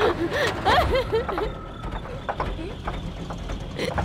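A woman sobbing and whimpering in terror, her voice wavering and breaking for about a second and a half. Then it goes quieter, with scattered small clicks and knocks.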